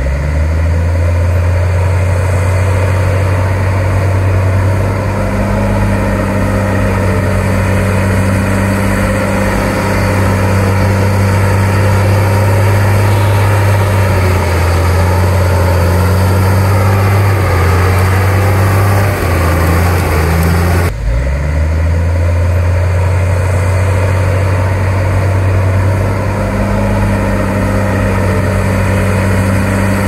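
Komatsu D53P bulldozer's diesel engine running steadily and loudly, its note dipping and recovering a few times in the middle. The sound changes abruptly about two-thirds of the way in, then the engine carries on steadily.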